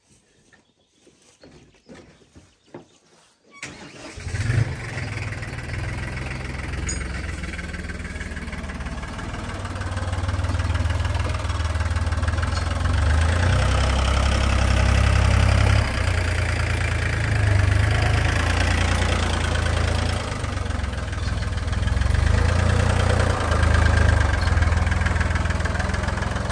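Compact tractor engine (a Goldoni) starting about four seconds in, then running steadily with a strong low rumble and getting louder partway through.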